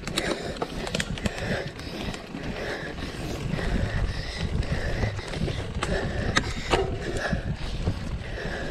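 Mountain bike ridden over rough ground: a steady rumble from the tyres and wind on the microphone, with irregular sharp rattles and clicks from the bike.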